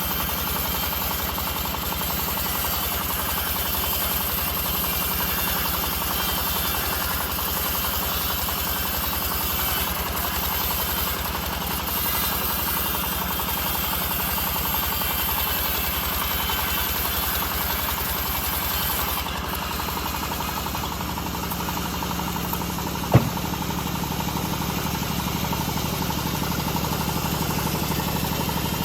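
Homemade bandsaw mill running steadily while sawing old teak logs into beams. There is one sharp click about 23 seconds in.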